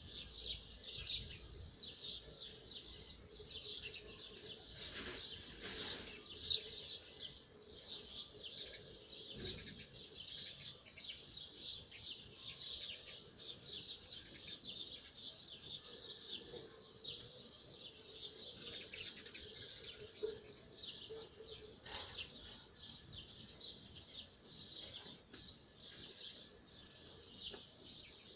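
Small birds chirping continuously in the garden trees, a dense stream of quick, high chirps several a second, with a few soft knocks now and then.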